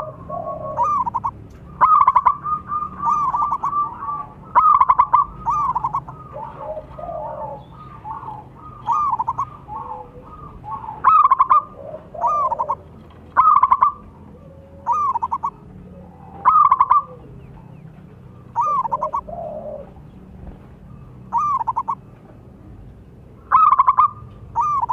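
Zebra dove (perkutut) song: phrases of short, staccato coos repeating every two to three seconds, with fainter, lower coos between the phrases.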